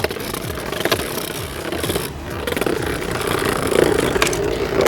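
Two Beyblade Burst spinning tops, Vise Leopard and Galaxy Zeus, spinning and clashing in the stadium: a steady scraping whir with rapid small clicks as the tops grind and knock together.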